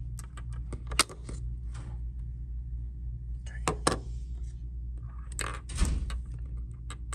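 Small hard plastic clicks and taps from handling the AirPods Pro 2nd-gen charging case and earbuds: a sharp click about a second in and clusters of clicks in the second half, over a steady low hum.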